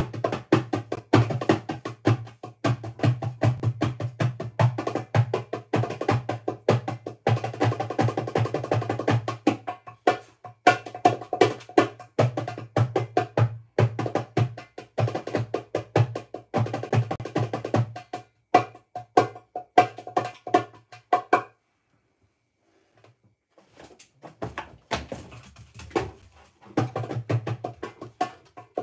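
Drums being played with fast, dense strokes. The playing stops for about two to three seconds roughly three quarters of the way through, then starts again.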